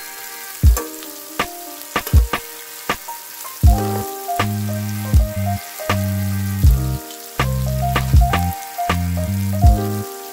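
Lofi background music: a soft kick drum about every three quarters of a second under a bass line and keys, with a steady sizzling crackle underneath.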